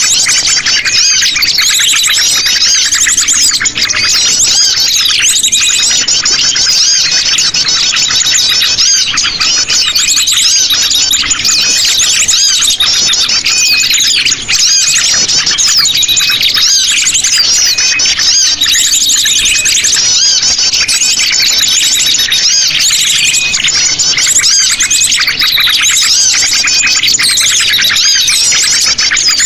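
A bird-lure recording of a flock of sogon birds calling noisily: dense, overlapping high chirps and fast trills that never let up.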